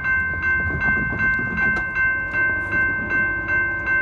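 A bell ringing in an even, quick rhythm, about two and a half strikes a second, over the low rumble of an approaching train.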